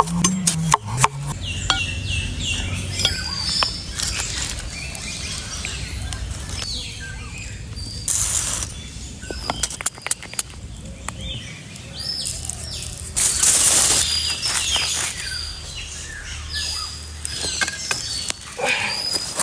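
Small birds chirping over a low steady hum, with scattered clicks and knocks and two short bursts of hiss, about eight and thirteen seconds in.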